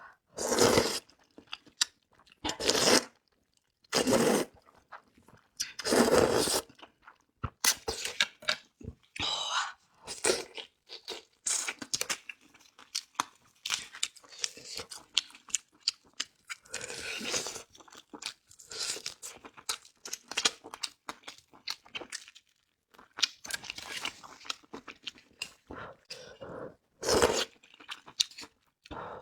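Close-miked eating: a person crunching and chewing food, with loud noisy mouth sounds every few seconds and quieter chewing clicks between them.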